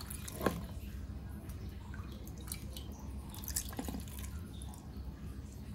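Fish-sauce brine with sliced garlic and chilli poured from a ladle over crabs in a plastic container: liquid dripping and trickling, with scattered small taps and one sharper knock about half a second in.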